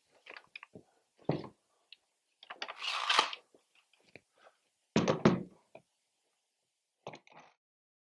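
Clamps clattering as they are taken down from a wall rack: scattered clicks and knocks, a heavy thump about a second in, a scraping rush around three seconds, two loud knocks about five seconds in and a few quick clicks near the end.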